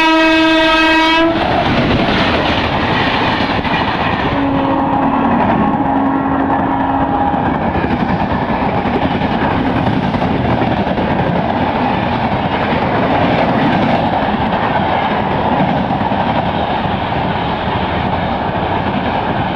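WDP4B diesel locomotive's horn sounding and cutting off about a second in, followed by the steady rush and clickety-clack of the train passing at speed.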